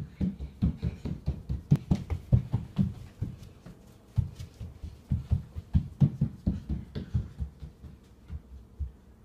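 Small child's footsteps running on a hardwood floor: quick, uneven thuds several a second, dying out about eight and a half seconds in.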